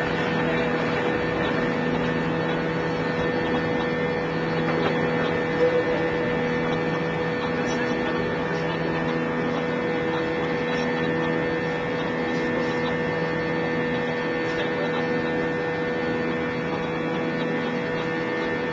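Jet airliner's engines at takeoff power, heard from inside the passenger cabin during climb-out just after takeoff: a steady drone with a steady humming tone.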